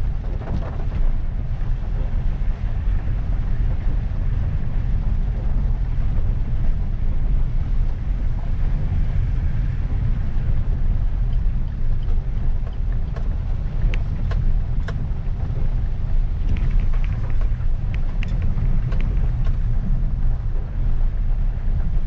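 Maruti Ignis heard from inside the cabin, driving slowly in first and then second gear on a wet road: a steady low engine and tyre rumble. Scattered light clicks come in over the second half.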